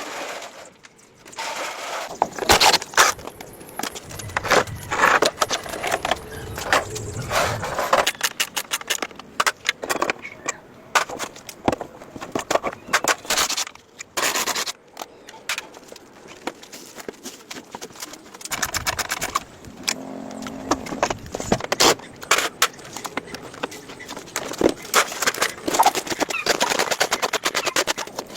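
Rapid clattering and scraping, with many sharp knocks and runs of fast ticking, as of hand tools being worked against metal.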